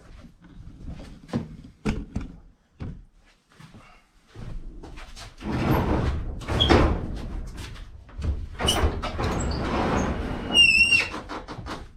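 Sliding barn door being opened. A few clicks come first, then two long stretches of rumbling as the door rolls along its track, with a short wavering squeak near the end.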